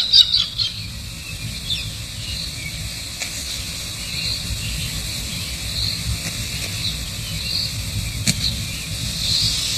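Outdoor ambience: faint, scattered high chirps of insects over a steady low rumble.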